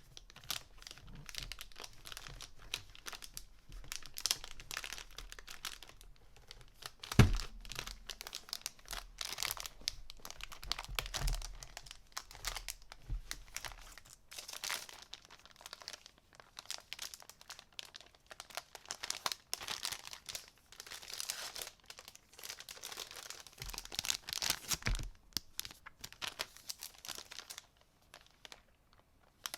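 Packaging being unwrapped by hand: crinkling and tearing wrap in irregular bursts, with one sharp knock about seven seconds in.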